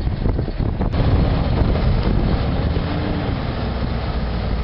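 A heavy logging truck's engine running under load, with wind buffeting the microphone.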